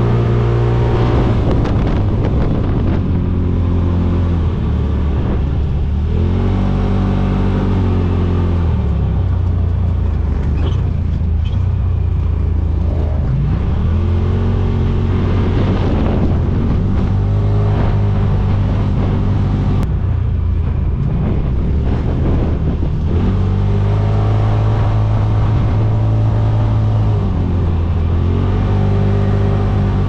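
Side-by-side UTV engine running hard, heard from on board, its pitch repeatedly rising and falling as the throttle is worked over the dunes.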